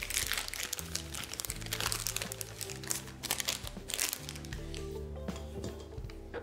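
Disposable plastic piping bag crinkling as it is opened out and handled, ready to be filled with whipped ganache, over background music with low held notes.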